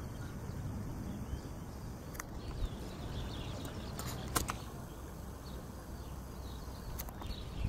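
Outdoor ambience: a steady low rumble, broken by a few sharp clicks and faint bird chirps.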